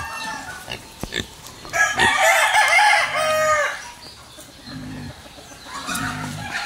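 Several chickens clucking and crowing at once, with overlapping calls that are densest and loudest about two to three and a half seconds in.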